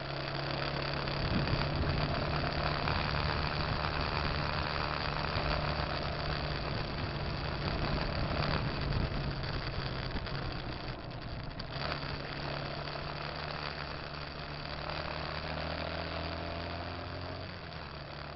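Motorcycle engine running under way, with wind and road rush over it. The engine note shifts about a second in and drops near the end.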